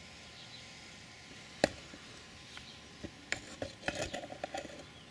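One sharp metallic click, then a quick run of light metal clicks and clinks a couple of seconds later, as of small metal parts or tools being handled.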